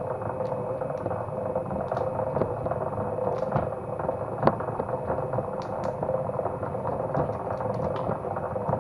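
Motor-driven wire stripping machine running with a steady hum, with scattered light clicks and ticks as it works.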